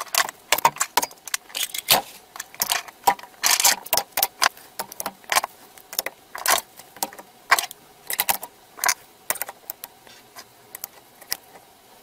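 Steel hand tools (pliers, tin snips, screwdrivers, scissors) clicking and clinking one after another as they are set onto an aluminium-covered magnetic tool strip and knock against each other. The clicks come thick and fast for most of the time, then thin out near the end.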